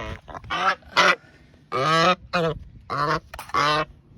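Domestic goose honking repeatedly, about seven short loud calls in quick succession, from a goose going after a person.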